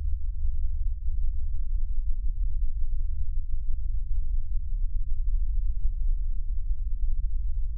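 A steady, deep bass drone, with nothing higher in pitch above it.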